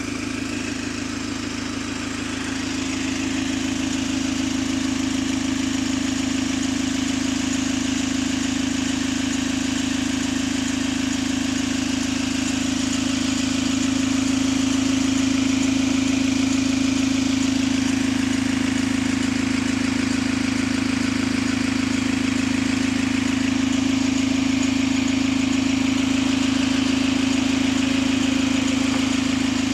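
Single-deck bus ENL74's diesel engine idling at a standstill: a steady low hum that grows a little louder about three seconds in, then holds.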